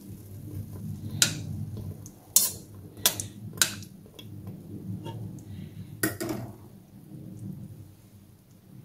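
Metal spoon clinking against the sides of a stainless steel pot while stirring gulab jamuns in sugar syrup: about five sharp clinks spread unevenly, the loudest in the first half, over a low steady hum.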